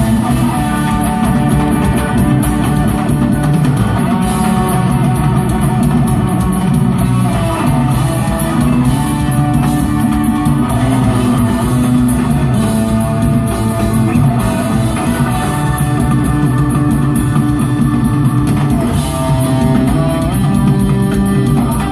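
Rock band playing live: electric guitar lines over a steady drum kit, continuous and loud.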